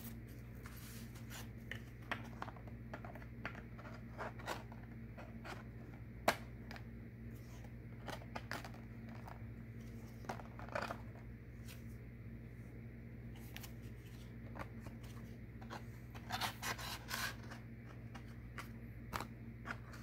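Oracle cards being drawn from the deck and set upright in a row on a wooden board: scattered soft clicks, taps and slides of card stock, with a small flurry of them near the end. A steady low hum lies underneath.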